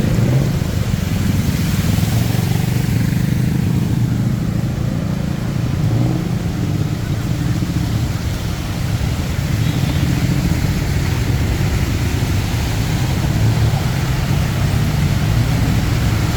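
Steady low rumble of city road traffic, with car and motorcycle engines running.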